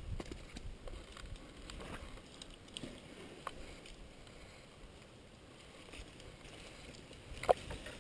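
Faint rustling and handling noise with scattered small clicks, and one sharp knock about seven and a half seconds in.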